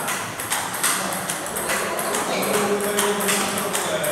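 Table tennis ball clicks at uneven intervals, from balls striking a table and bats, over a background of voices.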